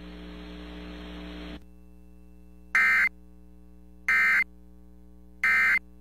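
Emergency Alert System end-of-message data burst over FM radio: three short, harsh digital buzzes about a second and a half apart, marking the end of the tornado warning. Before them a faint hiss gives way to a low steady hum.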